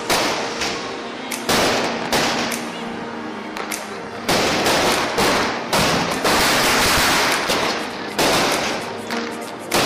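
Firecrackers going off in loud, irregular bangs every second or two, over music playing steadily underneath.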